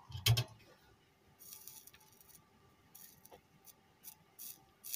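Bench handling sounds during circuit-board soldering work: one knock about a third of a second in, then a series of short, dry scratching and scraping sounds as a component is fitted to the board and the soldering iron is worked at its leads.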